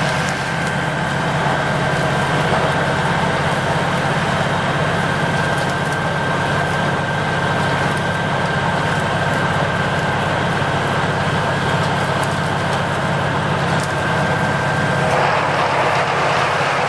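Snow-clearing truck's engine running steadily while its front-mounted rotary snow blower works through the snow, with a thin steady whine that stops about two seconds before the end.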